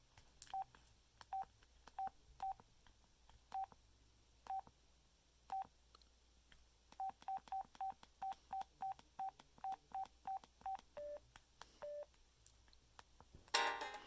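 LG AX145 cell phone keypad beeps as its buttons are pressed: short beeps all at one pitch, spaced out at first, then a quick run of a dozen or so, then two lower beeps. Near the end, a ringtone starts playing from the phone's speaker.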